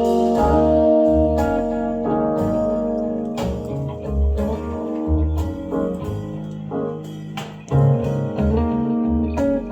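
A song with guitar, deep bass notes and regular percussive hits, played back through a pair of restored Pioneer CS-410 loudspeakers.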